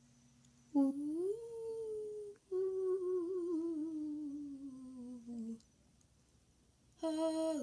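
A girl humming two long notes: the first rises and is held, the second wavers and slides slowly down. Near the end she starts singing again.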